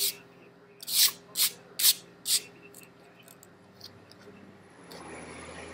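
Five short rustling rubs of a hand through a dog's long coat in quick succession, then a low steady hum sets in near the end.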